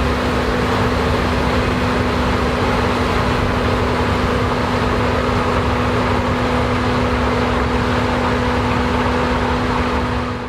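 Heavy farm harvesting machinery running steadily at close range: a loud engine and mechanical drone with a constant whine, cutting off abruptly at the end.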